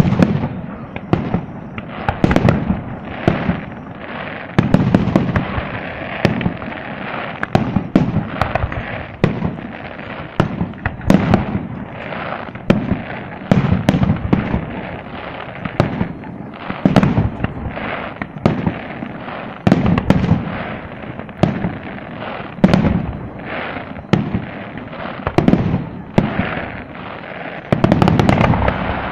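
Aerial firework shells bursting in a rapid, continuous barrage of bangs, several a second, thickening into a dense cluster near the end.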